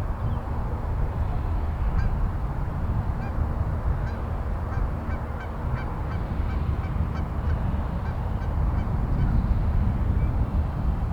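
Wind buffeting the microphone in a steady low rumble, with a string of short bird calls in the background from about two seconds in until near the end.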